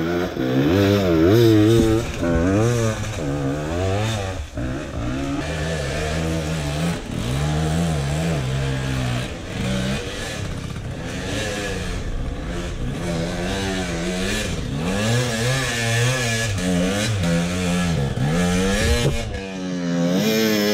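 Dirt bike engine being ridden hard off-road, its pitch rising and falling again and again as the rider works the throttle and shifts through the gears.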